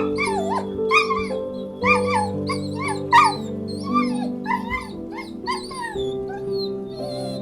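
An animal's short, high, repeated calls, bending up and down in pitch, about one or two a second, over soft instrumental music.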